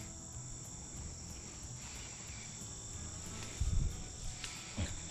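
Crickets trilling steadily at a high pitch, over a low rumble and a few soft bumps from about three and a half seconds in.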